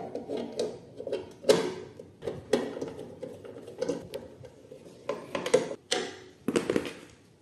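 Irregular clicks, knocks and scraping as a round vent cover is fitted to a small coffee roaster's housing and a screw is driven in with a hand screwdriver, with short rasping stretches about five and six and a half seconds in.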